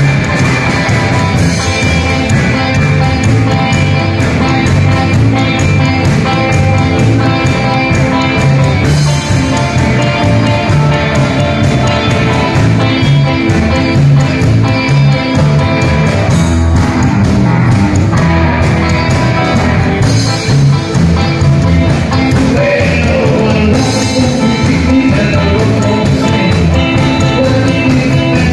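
A live rockabilly band playing rock 'n' roll on upright double bass, hollow-body electric guitars and drums, loud and without a break.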